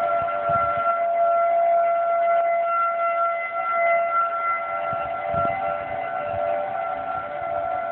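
Outdoor tornado warning siren sounding a steady, level tone that holds its pitch, signalling a tornado warning.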